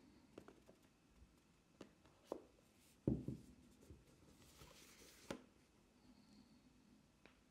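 Card and paper packaging being handled quietly: a few light taps and clicks, a soft thump about three seconds in, and a brief papery slide about a second later that ends in a click.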